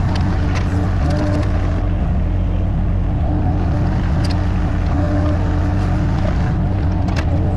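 Diesel digging machine's engine running steadily under load while it digs, with a higher whine coming and going and a few sharp knocks.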